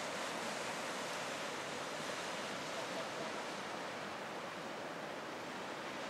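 Sea surf washing against the shore, a steady even hiss.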